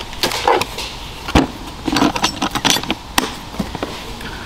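Small seasoning bottles and containers clinking and knocking together as a hand rummages through a seasoning box, a run of irregular clicks and rattles with a couple of sharper knocks.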